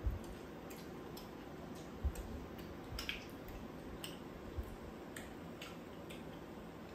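Chopsticks clicking and scraping against a pan and bowls at a meal, with chewing and a few soft thumps on the table.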